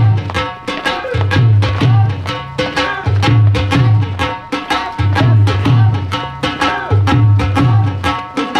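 Bhangra dance music with a fast, steady drum beat.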